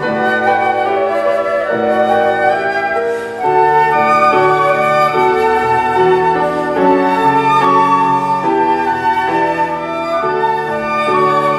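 Flute ensemble playing live, several flute parts sounding together in held notes that change every second or so.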